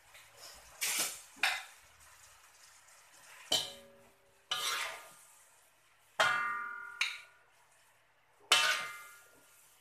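Metal ladle scraping and knocking against a metal wok and a serving plate while stir-frying greens, about seven uneven strokes. Several of them leave a short metallic ring.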